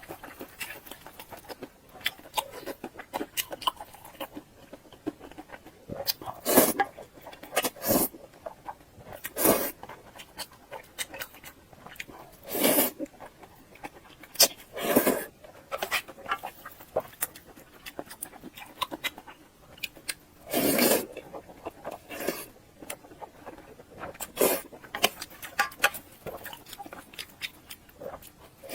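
Close-miked eating: a person chewing with irregular wet mouth clicks throughout, and louder half-second bursts of chewing or slurping every few seconds.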